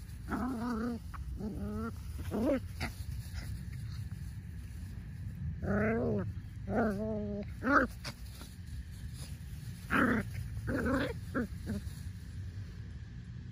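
Miniature pinscher puppies play-fighting, giving high-pitched, wavering growls in about ten short bouts of roughly half a second each, over a steady low rumble.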